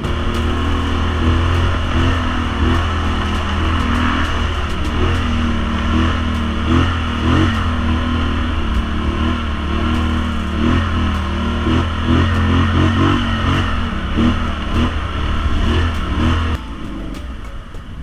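Polaris Sportsman XP 1000 ATV's twin-cylinder engine running under throttle along a rough dirt trail, the revs rising and falling, with scattered clicks and knocks. Near the end the throttle comes off and the engine drops to a quieter run.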